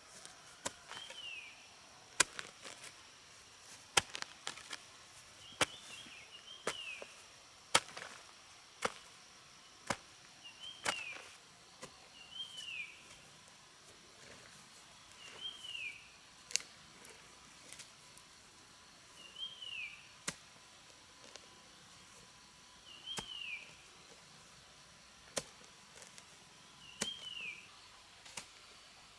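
Sharp, irregular knocks, often one or two a second, as of a tool striking a hard material. A short falling chirp repeats every few seconds.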